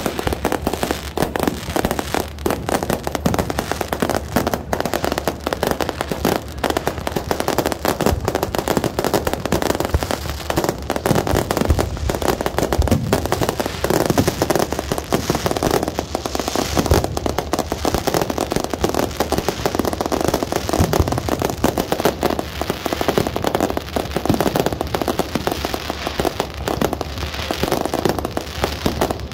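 Fireworks going off in a dense, continuous barrage: many rapid bangs one after another with no pause, several aerial shells bursting at once.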